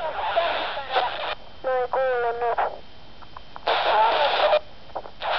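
Transmissions received on a PMR446 walkie-talkie, heard through its small speaker: several bursts of hissy static carrying distorted voice sounds, each cutting in and out with short quiet gaps between.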